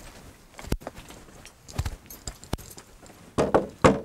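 Footsteps on a hard surface, a few spaced steps, then a cluster of louder thumps near the end.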